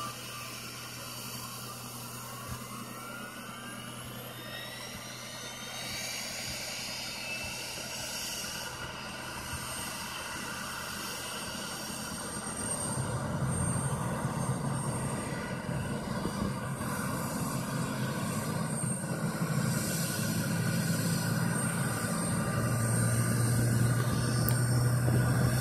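Embraer E175's GE CF34 turbofan starting during pushback: a rising whine as the engine spools up over the first several seconds, over a steady low hum that grows louder from about halfway through.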